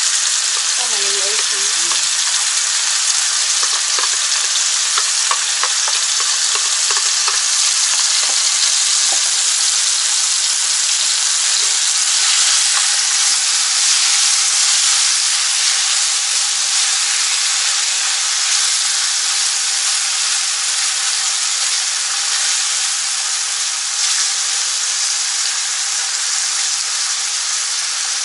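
Thin-sliced marinated beef and sliced onion sizzling steadily in a hot nonstick frying pan as they are stir-fried with chopsticks, with a few light clicks in the first several seconds.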